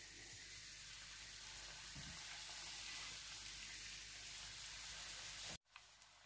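Oil sizzling steadily in a frying pan as breaded chicken nuggets shallow-fry, a soft even hiss that cuts off abruptly near the end.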